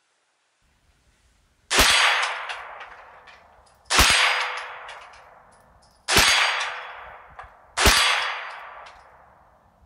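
Ruger 10/22 takedown .22 LR rifle firing CCI Stinger 32-grain hyper-velocity rounds: four shots about two seconds apart, each ringing out in a long fading echo.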